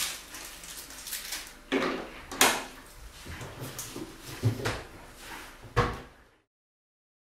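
Knocks and clatter from the cupboard under a kitchen sink as someone rummages inside it, about five sharp knocks over a low rustle. The sound cuts off abruptly about six seconds in.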